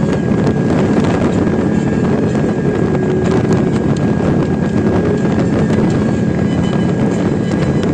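Suzuki Intruder Volusia VL800's 45-degree V-twin engine running at a steady highway cruise, with wind rushing over the microphone.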